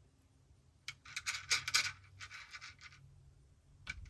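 Metal benchrest front rest being shifted into place on the shooting bench top: a quick run of scraping, clicking and rattling that starts about a second in and lasts about two seconds, with one more click near the end.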